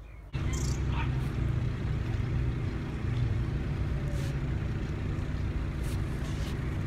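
A steady low engine hum that starts abruptly about a third of a second in, with a few faint ticks over it.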